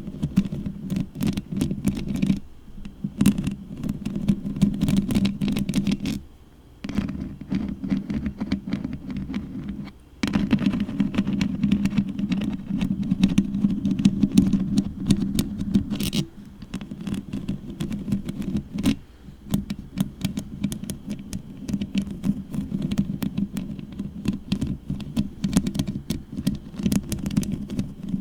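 Long fingernails scratching and rubbing directly on a microphone: a dense, fast run of scratchy clicks over a low rumble picked up by the mic, breaking off briefly about six seconds in and again about ten seconds in.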